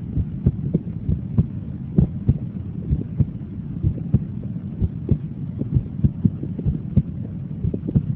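Human heart sounds heard through a stethoscope: regular lub-dub beats over a steady low rumble.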